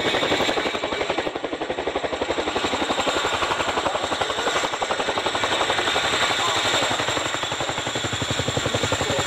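Boeing Chinook HC6 tandem-rotor helicopter hovering low near the ground, its two rotors beating a rapid, even blade slap over a steady high turbine whine.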